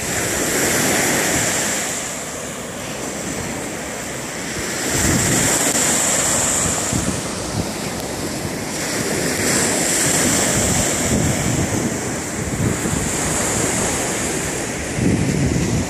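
Small waves washing onto a sandy lake shore, the surf hiss swelling about every four seconds, with wind buffeting the microphone.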